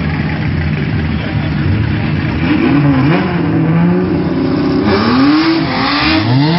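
Drag race car engines at the start line, first running at a steady low idle. From about two and a half seconds in they are revved up and down in quick blips, and near the end one engine revs up in a long rising pull as a car launches.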